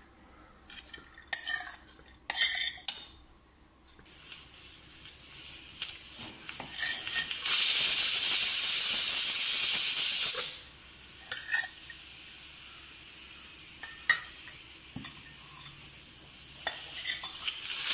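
A metal spatula clinks and scrapes against a steel pan. Then a pressure cooker vents steam: a loud hissing whistle lasting about three seconds, a softer steady hiss, and a second whistle starting near the end, the two whistles that mark the jackfruit as cooked.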